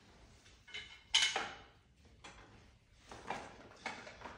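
Straps and buckles of a patient-lift sling being handled and fitted: a few short rustles and clacks, the loudest a little over a second in.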